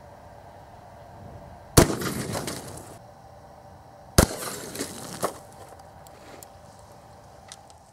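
Two 12-gauge shotgun shots from short mini shells, about two and a half seconds apart, each a sharp bang that echoes away over about a second. The first, a 1 1/8 oz pumpkin-ball load, is the louder. The second, an Aguila mini-slug, is a little quieter. A short click follows about a second after the second shot.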